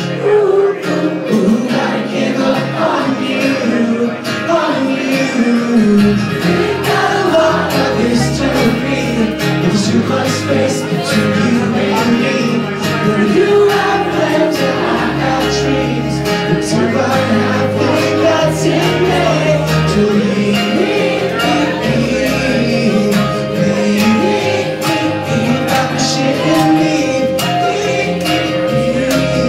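A live rock band playing, heard from the crowd: guitar and sung vocals, with a deep bass part coming in about six seconds in.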